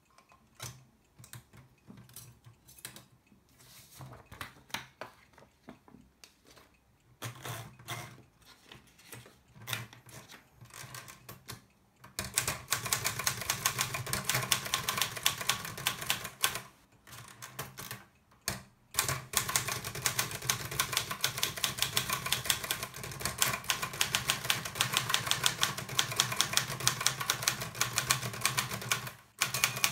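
Circa-1957 Olivetti Lettera 22 manual typewriter, freshly restored: scattered clicks as paper is wound into the platen, then from about twelve seconds in, rapid typing, the typebars striking the paper in a fast, steady patter with two short pauses.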